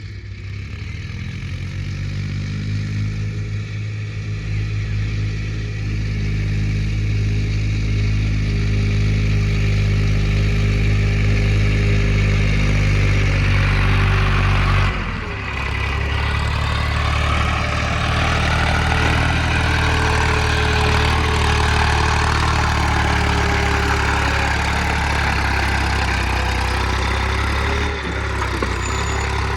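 Heavy diesel engine running and revving under load, building up over the first half, then changing abruptly about halfway and running on steadily.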